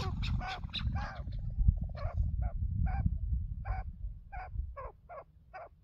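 Chukar partridges calling: a dense run of overlapping calls in the first second, then a string of short, separate calls about two a second, growing fainter near the end.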